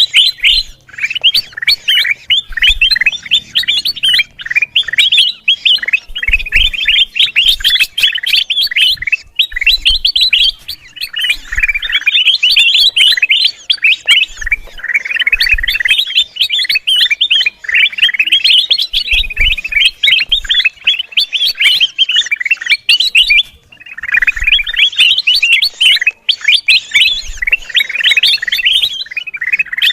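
Kutilang emas, a bulbul, calling in dense, rapid, excited chirping chatter that runs almost without break. There is a brief pause about two-thirds of the way through.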